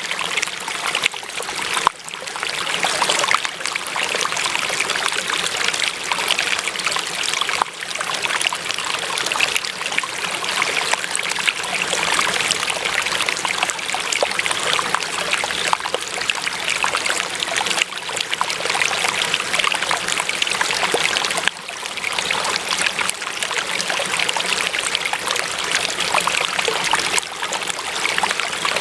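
Water running and trickling steadily, like a small stream flowing over stones, with a dense splashing texture and a couple of brief dips in level.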